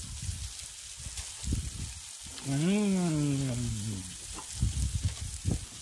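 An adult voice makes one drawn-out wordless sound, rising briefly and then sliding down in pitch, about halfway through. Under it, low rumbling and rustling bursts of wind and handling on the microphone.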